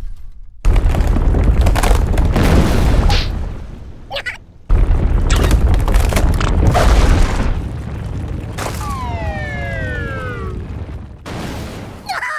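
Cartoon earthquake sound effect: heavy, loud ground rumbling in two long stretches, broken off briefly about four seconds in and fading down after about eight seconds. Near the end a long falling whistle-like glide sounds, with a few short high cries scattered through.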